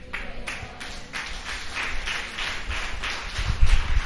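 People clapping in a steady rhythm, about three claps a second.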